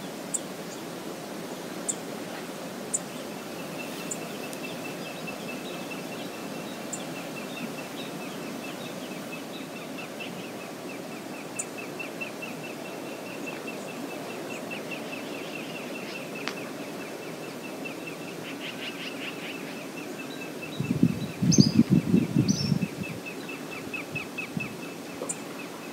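Shallow river flowing steadily over riffles, with birds calling; a fast, even series of high ticks runs through most of it. About 21 seconds in, a loud low burst of noise stands out for a couple of seconds.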